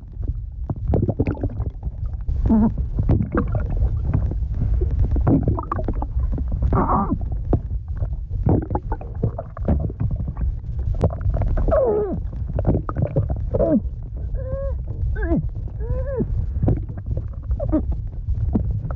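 Voice-acted underwater drowning sound effect: repeated short, muffled vocal mmphs and moans that bend up and down in pitch, over bubbling and a steady low underwater rumble.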